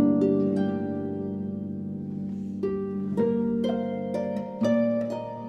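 Two concert harps played together, plucked notes ringing and fading. The notes thin out to a lull about two seconds in, then a new run of notes enters and builds.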